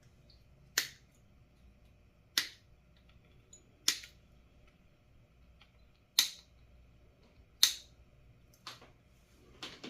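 Wire cutters snipping component leads off a circuit board: five sharp clicks about one and a half seconds apart, then two fainter ones near the end.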